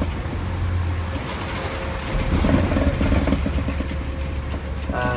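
Safari ride truck driving along, its engine giving a steady low hum under rumbling road and running noise.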